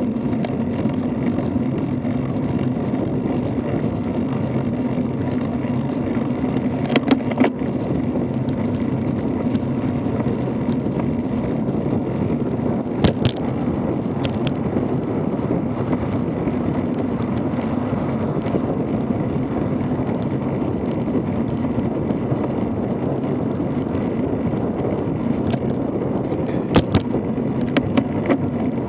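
Steady wind rumble and tyre noise on a camera riding along on a road bicycle, with a low hum running through it. A few sharp knocks from bumps in the path break in, one about halfway through and a cluster near the end.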